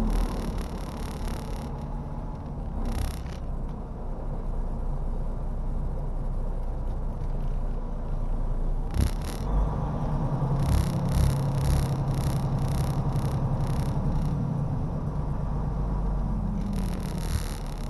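Semi-truck's diesel engine running, heard inside the cab as the truck creeps along at low speed, with short bursts of hissing coming and going, several in quick succession about two-thirds of the way through.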